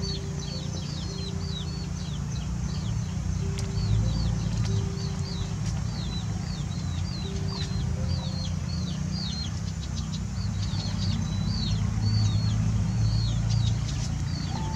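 Birds chirping rapidly, several short high downward chirps a second, over a steady low rumble.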